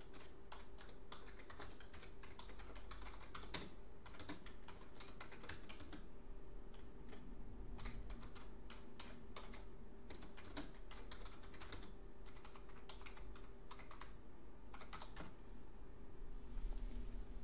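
Typing on a computer keyboard: bursts of quick key clicks separated by short pauses, stopping a second or two before the end, over a faint steady hum.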